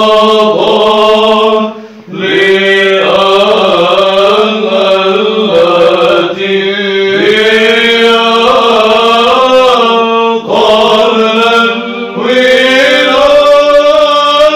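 Byzantine chant in Arabic, sung by a group of male monks in the fifth tone: a moving melody over one low note held steady underneath (the ison). The singing breaks off briefly about two seconds in, then goes on.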